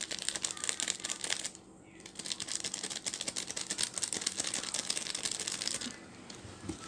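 Small plastic instant-noodle seasoning sachet crinkling as it is squeezed out by hand, in two stretches with a short pause about one and a half seconds in.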